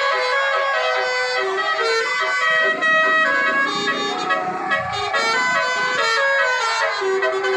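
Basuri telolet horns on a tourist mini-train playing a tune in held notes that step from one pitch to the next, with a lower sound sliding down in pitch about three to five seconds in.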